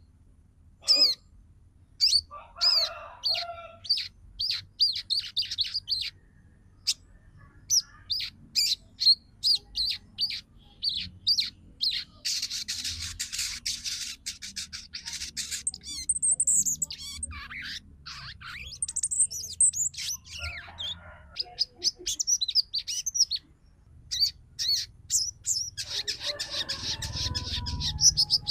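Female sogon (brown-throated sunbird) calling: a long run of sharp, high chirps broken by bursts of rapid chattering twitter, the female's call used to excite males.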